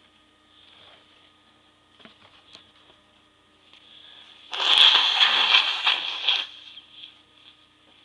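A person's stifled sneeze: a sudden loud, noisy burst about four and a half seconds in that lasts about two seconds, after a faint breath just before it.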